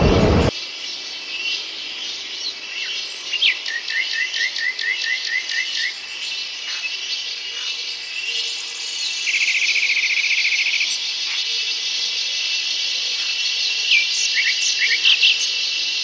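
A steady, high insect chorus with several birds calling over it: a run of about ten quick chirps a few seconds in, a short buzzy trill around the middle, and a few sharp calls near the end. At the very start a louder rumble from the passing train cuts off abruptly.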